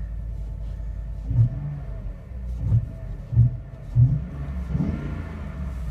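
Ford F-150 pickup's engine idling just after a cold start, a steady low rumble. It carries four short, louder low pulses between about one and four seconds in, and a brief rise and fall near the end.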